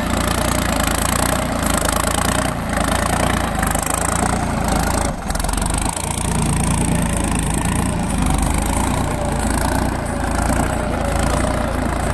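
Solis tractor's diesel engine running steadily while the tractor pulls a reversible mouldboard plough through the soil.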